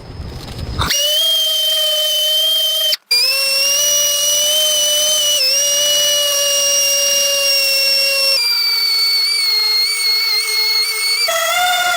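A loud hiss for the first second, then a high, steady whine from a spinning power tool, in several stretches that cut off abruptly and resume at a slightly different pitch. The pitch sinks a little in the later stretches and wavers near the end.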